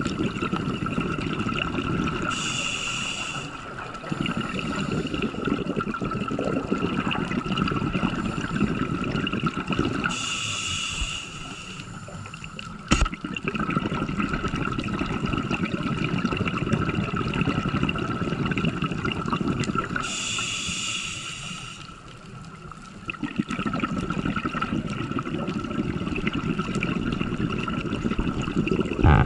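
Scuba diver breathing through a regulator underwater: three short hisses of inhaling, each followed by several seconds of bubbling rumble as the exhaled air escapes. A single sharp click about thirteen seconds in.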